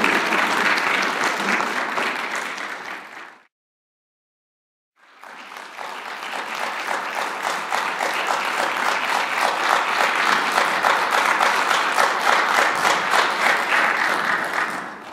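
Audience applauding. The applause fades out about three seconds in and cuts to silence for a second or so, then builds back and carries on steadily before dying away near the end.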